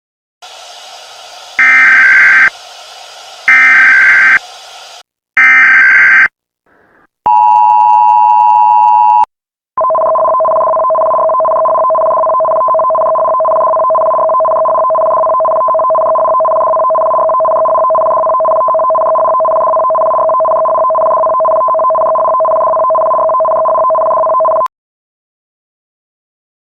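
Emergency alert system tones. Three short, loud, buzzy bursts about two seconds apart sound over a faint hiss, then a two-second dual tone. A long steady two-tone attention signal follows, held for about fifteen seconds before it cuts off suddenly.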